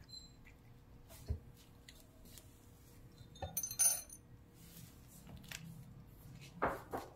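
Dry cat kibble poured into a ceramic bowl: a short rattling clatter of pellets on ceramic a little past halfway. Near the end, a couple of crunches as the cat bites into the kibble.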